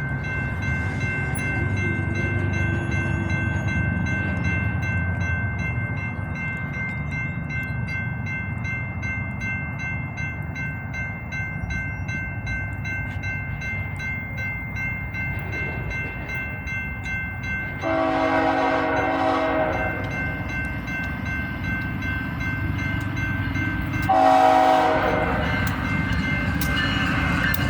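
BNSF GE ES44C4 diesel locomotive, a GEVO V12, running past with a steady rumble, sounding its air horn twice. The first blast is about two seconds long, a little over halfway through. The second, louder blast comes a few seconds later.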